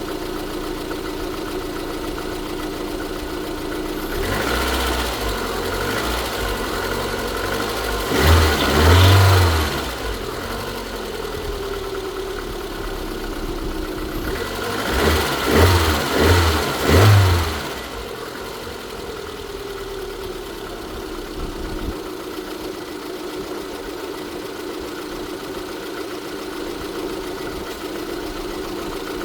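Lada Kalina's 1.6-litre eight-valve petrol engine idling, blipped to higher revs about a third of the way in and then three times in quick succession near the middle, each time falling back to a steady idle. It makes an unexplained extraneous noise whose cause the owner does not know.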